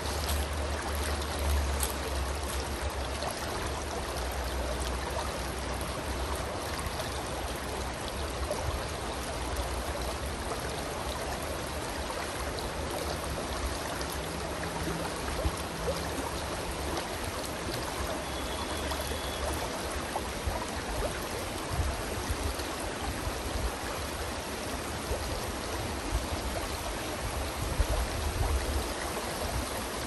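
Shallow stream rippling steadily over rocks in a riffle, with a low rumble underneath through the first two-thirds.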